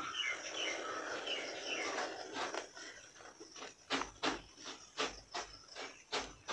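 Faint paper-and-pen handling: a soft rustle, then light clicks about three times a second as a pen is brought to the page.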